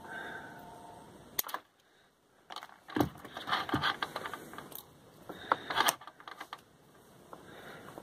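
Handling noise from hands working loose thermostat wires in a wall cavity: rustling and scraping with a few sharp clicks, one about a second and a half in, one about three seconds in, and a cluster near six seconds.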